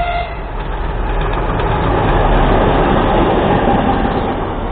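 2M62 two-section diesel locomotive passing close at speed. Its horn cuts off just after the start, and then the noise of its two-stroke diesel engines and wheels on the rails fills in, loudest about two to three seconds in.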